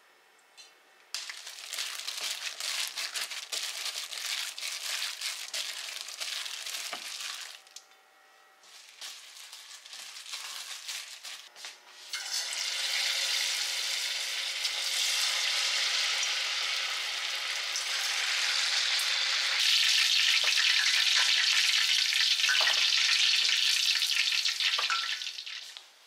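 Pork pieces deep-frying in hot oil in a stainless pot, a dense crackling sizzle. It starts about a second in, drops away briefly in the middle, then comes back louder and steadier until it stops just before the end.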